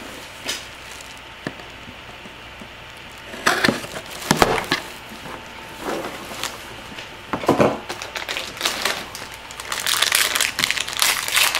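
Clear plastic shrink wrap being peeled off a sealed trading-card box and crumpled: irregular crinkling crackles that come thick and fast near the end.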